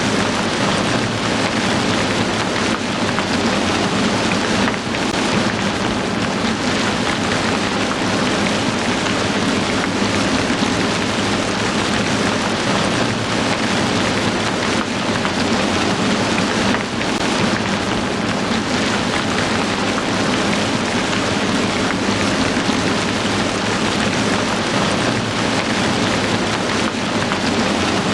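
Heavy rain falling, a steady even hiss that holds at one level.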